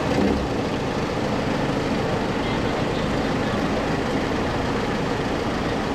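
Large truck engine running steadily.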